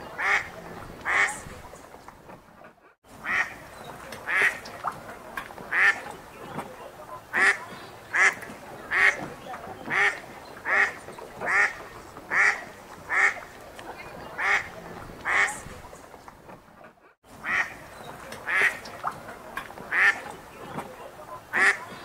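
Ducks quacking in long runs of short, evenly spaced quacks, roughly one a second. The sound cuts out briefly twice, about three seconds in and again around seventeen seconds.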